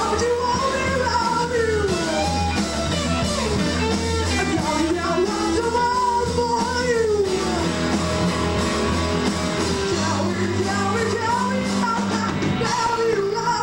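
A rock band playing live: an electric guitar lead with bending notes over bass and drums.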